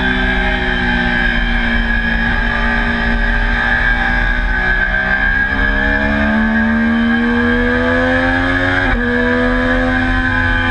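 Triumph Daytona sport bike engine under load on track. The revs dip slightly, then climb steadily for several seconds, fall sharply with an upshift about nine seconds in, and climb again.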